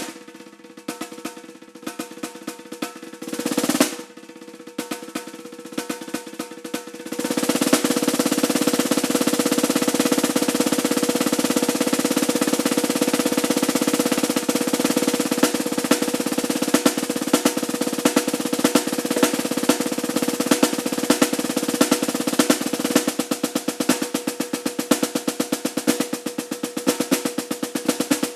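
Solo snare drum: soft separate strokes and short rolls, with a quick crescendo about four seconds in. From about seven seconds in it goes into a loud, sustained roll with accented strokes standing out toward the end.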